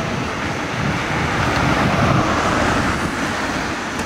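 Steady road traffic noise, a vehicle's rushing hiss swelling a little about halfway through.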